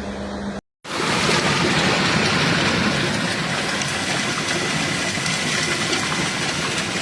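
Loud, steady rushing of storm water in a heavy downpour, starting about a second in after a brief cut. Before it comes a short, quieter stretch with a steady low hum.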